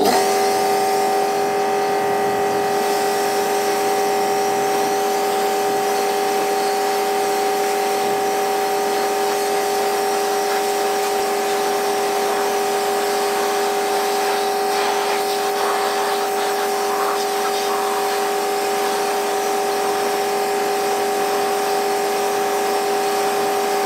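Electric pressure washer running steadily with a constant whine, its jet spraying water onto a cylinder mower's blades to rinse off lapping paste.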